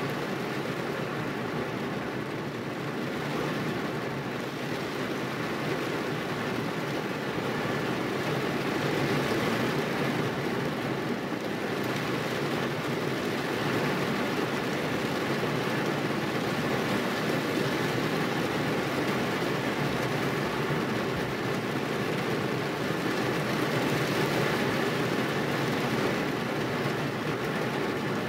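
Heavy rain on a car's roof and windshield, heard from inside the cabin as a steady, even hiss that grows a little louder after several seconds.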